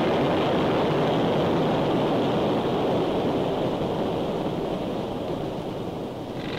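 A loud, steady rushing noise with no pitch, cutting in suddenly and slowly fading. Near the end a pitched machine hum begins underneath it.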